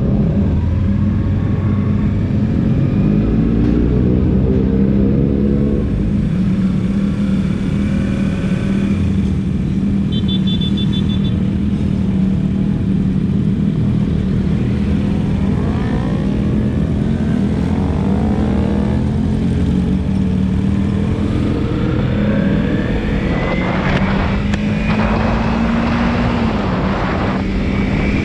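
Kawasaki Z300 parallel-twin engine running at low speed, its pitch rising and falling several times through the middle, then climbing in one long rise near the end as the bike accelerates.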